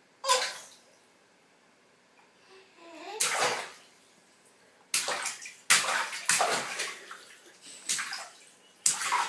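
Bathwater splashing in a run of sharp splashes from about five seconds in. Before that, about three seconds in, there is a short vocal "ah-choo" shaped like a child's fake sneeze.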